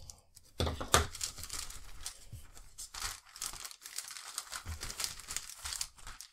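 Clear plastic kit bag crinkling and rustling as a plastic model sprue is handled and slid about inside it, with a sharp tap about a second in.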